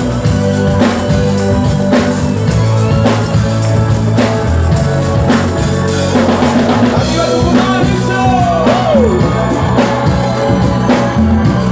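Live rock band playing loud, with a steady drumbeat over bass and electric guitar; a voice sings about halfway through.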